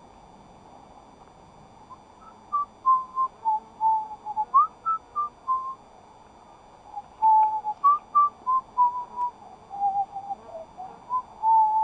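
A man whistling a tune in clear single notes, in two phrases with a short pause between them, starting about two seconds in.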